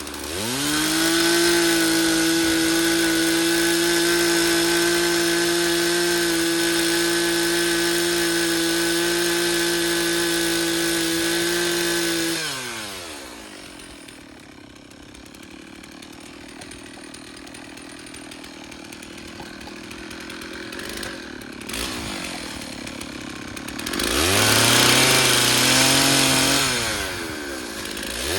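Stihl 066 two-stroke chainsaw revving up to full throttle and holding it steady for about twelve seconds, then dropping back to idle. It revs up again briefly near the end and falls back to idle.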